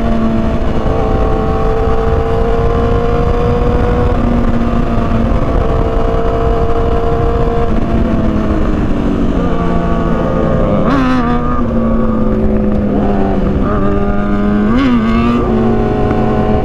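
Motorcycle engine running at a steady cruising speed, with wind rushing over the microphone. The engine note sags a little about eight seconds in, then jumps briefly in pitch twice, about eleven and fifteen seconds in.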